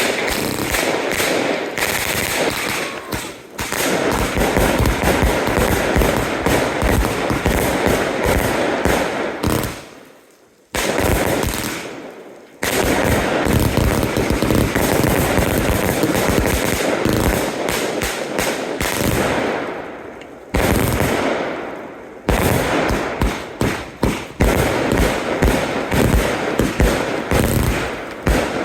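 Consumer fireworks going off in rapid volleys: a dense run of sharp bangs and crackles. It breaks off abruptly and restarts a few times.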